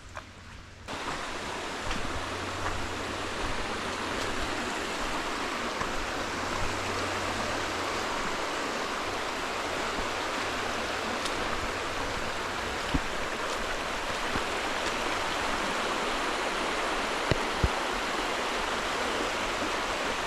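Creek water rushing steadily over rocks, starting abruptly about a second in, with a few brief clicks near the end.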